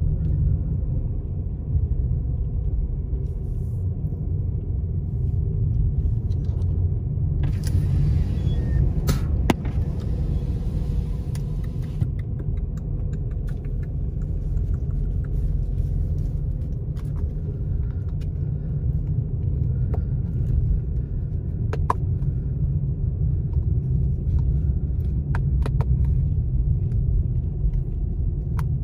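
A car driving on a snow-covered road, heard from inside the cabin: a steady low road and engine rumble, with a few seconds of added hiss about eight seconds in and scattered light clicks.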